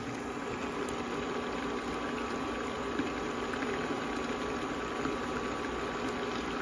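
Water boiling in a lidded pan of gyoza being steam-fried on an induction cooktop: a steady bubbling hiss, with a faint steady hum underneath.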